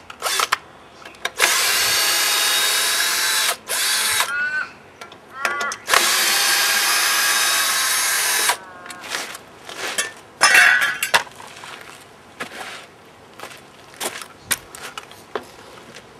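Cordless drill working at the end of a jarrah log: it runs in two steady bursts of about two seconds each, with brief whirring spin-ups and run-downs between them. Scattered knocks and clicks follow.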